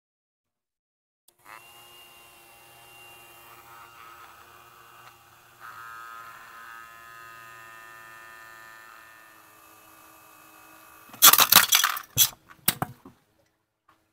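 A small toy fan's electric motor hums steadily. About eleven seconds in, a car tyre rolls onto the plastic fan and crushes it with a quick run of loud cracks and snaps that lasts about two seconds, and the hum stops.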